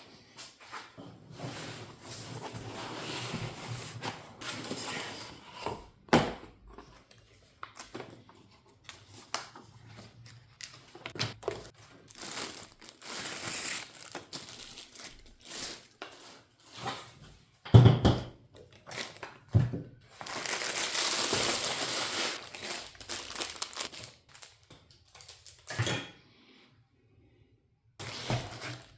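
Crinkling and rustling handling noise with scattered clicks and knocks, and one sharp heavy knock about two-thirds of the way through.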